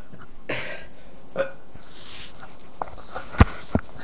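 A few short breathy sounds close to the microphone, then sharp knocks from a handheld phone being moved and gripped, the loudest knock about three and a half seconds in.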